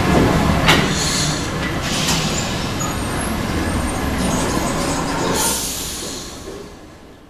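RATP MF67 metro train running alongside a station platform, a steady rumble of wheels on rails. There is a sharp metallic clack about a second in and a brief burst of hiss around five seconds in, then the noise dies down near the end.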